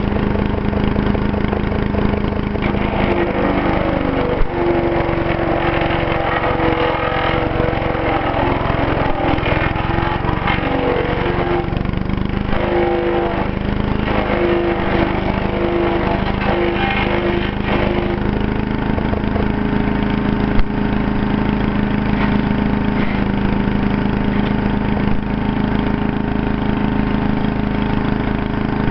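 Troy-Bilt Super Tomahawk chipper shredder's 8 hp Briggs & Stratton engine running steadily, with the chipper crackling and rattling as it chews through small branches from about three seconds in until a little past halfway. After that the engine runs on without load.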